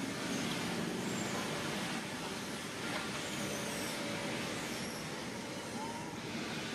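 Steady outdoor background noise with a low rumble throughout, of the kind made by distant road traffic; no distinct monkey calls stand out.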